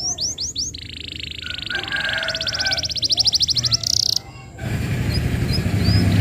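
Male canary singing: a few quick falling whistles, then a buzzy trill and a very fast rattling trill ending in a high note, all stopping abruptly about four seconds in. Soon after, a louder rushing noise with a low hum takes over, with a few faint chirps still over it.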